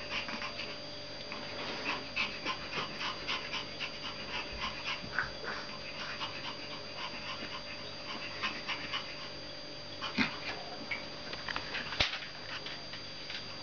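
Pomeranian puppies and adult dogs play-wrestling: small yips and whimpers with panting, among many short clicks and scuffles. A sharper knock comes near the end.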